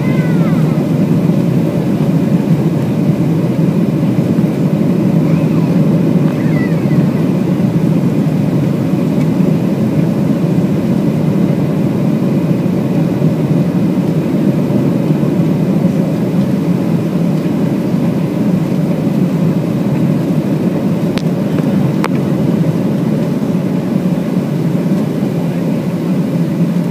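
Boeing 737-700 cabin noise on final approach, heard from a seat over the wing: a steady, loud rush of the CFM56 turbofans and airflow, with a low hum running under it. Two short clicks about a second apart come near the end.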